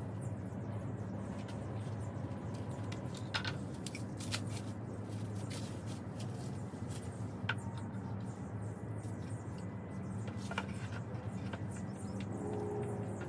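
A few light clicks and taps of furniture boards and packaging being handled during assembly, spaced a few seconds apart, over a steady low hum.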